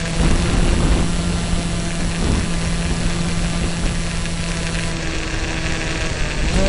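Multiplex EasyStar model plane's electric motor and pusher propeller running steadily in flight, a droning hum over wind rush; near the end the pitch steps up as the throttle is opened.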